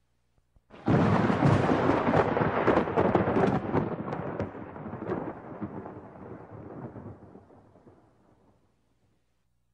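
A sudden loud crash of noise with crackles about a second in, dying away gradually over the next eight seconds to silence.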